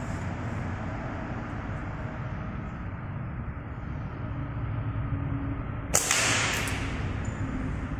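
A slingshot is released about six seconds in: a sharp snap followed by about a second of hissing whoosh, over a steady low background rumble.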